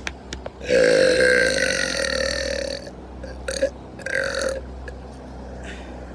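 A man burping: one long, loud burp lasting about two seconds, then two short burps.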